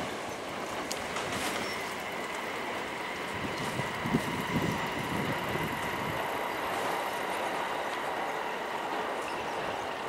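Hankyu electric train running around a sharp curve: a steady rumble of wheels on rail, with a thin steady high tone over it and a couple of knocks about four seconds in.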